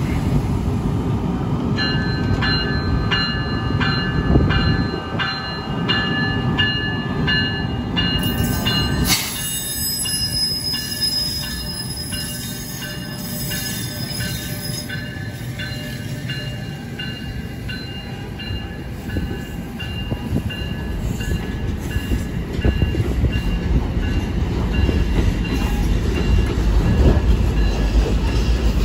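New Jersey Transit electric push-pull train with double-deck coaches rolling through a station. A steady low rumble runs under a set of high squealing tones that pulse about twice a second. A sharp burst comes about nine seconds in, and the rumble grows louder over the last few seconds.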